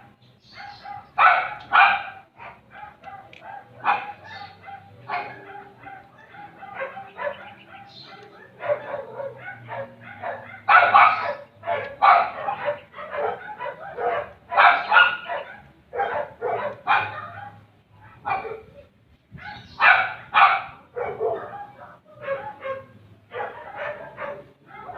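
A dog barking repeatedly, some barks coming in quick pairs, over a faint steady hum.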